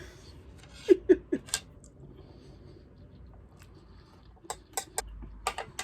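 Person eating, with a few short crunching clicks close to the microphone: a cluster about a second in and another near the end.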